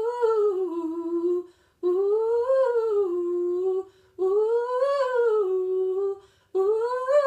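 A woman singing a vocal run exercise: the same short phrase of notes rising and then falling back, sung over and over with brief breaths between. It is the riff practised slowly and now taken at a quicker pace.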